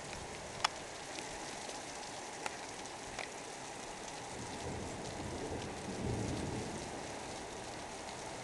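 Heavy thunderstorm rain pouring steadily onto a rooftop terrace, with a few sharp ticks of drops striking close by. A low rumble of distant thunder swells up past the middle and fades.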